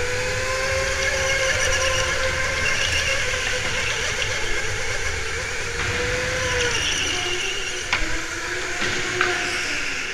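Electric go-kart at racing speed, heard from the driver's seat: a motor whine that rises and falls in pitch with speed over steady wind and tyre noise, with a couple of sharp knocks near the end.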